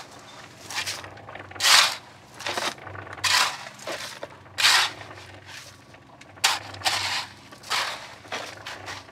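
Steel shovel blade scraping and chopping through wet, gravelly concrete to spread and work it around rebar in a plywood form: about ten rough scrapes, roughly one a second, over a low steady hum.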